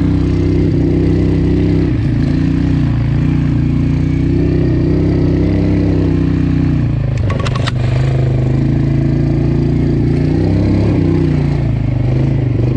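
Single-cylinder ATV engine running at light throttle while riding, its pitch dipping and rising a little with the throttle. A brief rattle of sharp clicks comes about seven seconds in.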